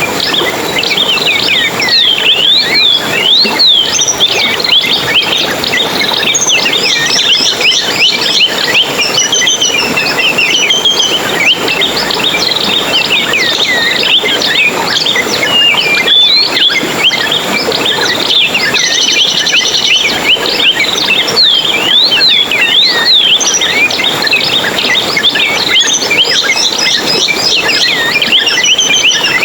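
Many small birds chirping and twittering together in a dense, continuous chorus of quick rising and falling high calls.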